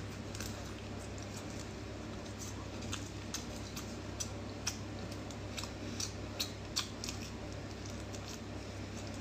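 Close-miked eating sounds of peeled shrimp being bitten and chewed: irregular sharp little clicks and wet smacks, over a steady low hum.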